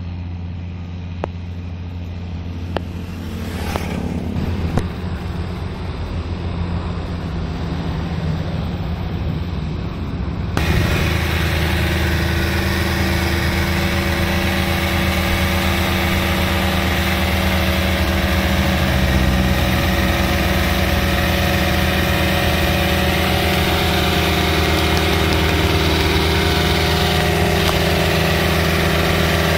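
New Holland tractor's diesel engine running steadily while it pulls a rotary tiller through a flooded rice paddy. It is distant and quieter at first, then close and louder, with the churning of the tiller and mud, from about ten seconds in.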